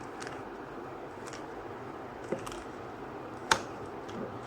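QiYi Sail 3x3 speed cube being turned by hand: the plastic layers click a few times at irregular intervals, the sharpest click about three and a half seconds in, over a steady hiss.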